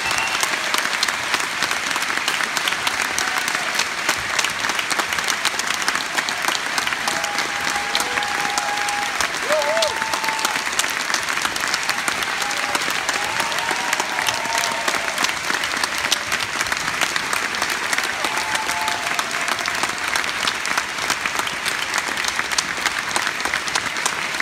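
Large theatre audience applauding, a dense, steady clapping that keeps an even level throughout.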